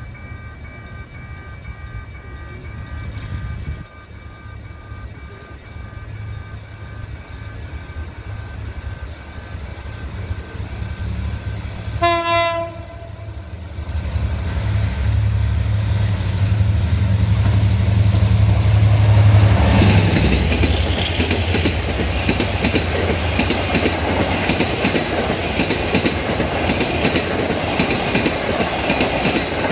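Level-crossing warning signal ringing in a steady pulsing pattern, then a train horn sounds once, about twelve seconds in. The locomotive's engine rumble builds to a peak as it passes close by, followed by the steady rush and wheel clatter of the passenger coaches going by at speed.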